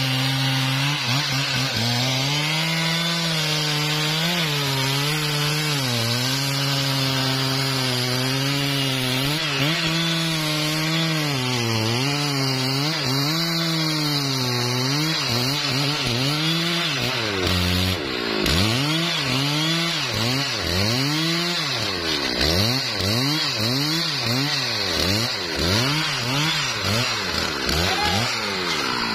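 Stihl MS 660 two-stroke chainsaw running under load as its chain cuts into the trunk of a trembesi (rain tree) at the base. The engine pitch wavers with the load for the first half, then from about 18 seconds in swings up and down roughly once a second as the throttle is worked in the cut.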